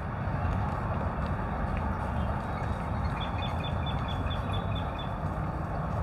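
Steady low outdoor background rumble. About three seconds in, a bird gives a quick run of about ten short, high notes lasting about two seconds.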